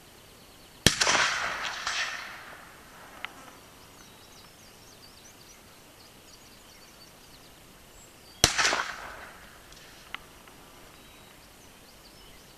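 Two shots from a Smith & Wesson 686 .357 Magnum revolver, about seven and a half seconds apart, each followed by an echo that rolls away over a second or so. The first is fired double action, the second single action.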